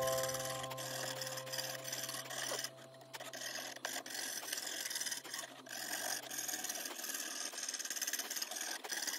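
Jeweler's piercing saw cutting through thin brass plate: a steady, fast rasp of short, even saw strokes.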